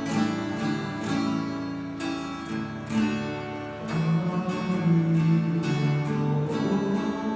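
Acoustic guitar strumming chords in a steady rhythm, playing a hymn accompaniment.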